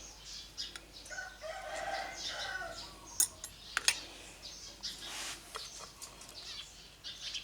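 A rooster crowing in the background: one crow starting about a second in and lasting about two seconds. It is followed by a couple of sharp clicks a few seconds in.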